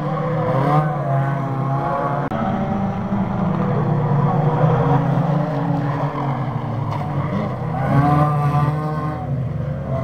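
Several 2-litre banger race cars running together on the track, a steady engine drone with pitches rising and falling as the drivers rev.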